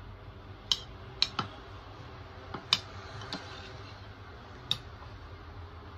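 A metal fork clinking and scraping against ceramic plates, about six sharp separate clinks a fraction of a second to a second or two apart, over a low steady hum.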